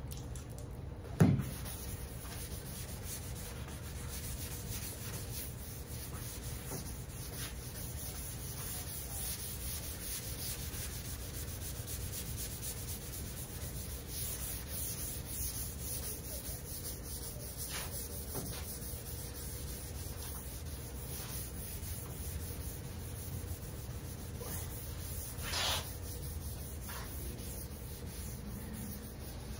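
Steady hand sanding of a dried sealer coat on a car hood, a sanding sponge rubbed back and forth to knock down the slightly rough surface so the paint goes on smoother. A short low sound stands out about a second in.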